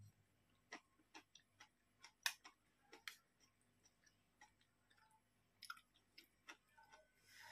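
Faint eating sounds: a metal spoon clicking against a bowl and chewing, heard as a dozen or so soft scattered clicks, the loudest a little over two seconds in.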